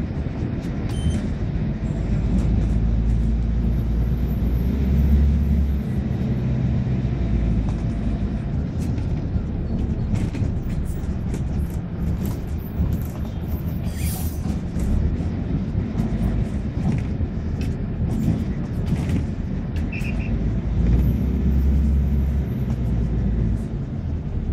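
Low rumble of a moving city bus heard from on board: engine and road noise with scattered clicks and rattles, swelling twice for a couple of seconds.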